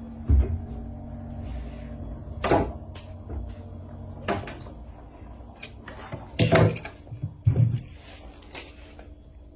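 A sleeping woman snoring in short, sharp snorts at uneven intervals, with the loudest two close together near the end.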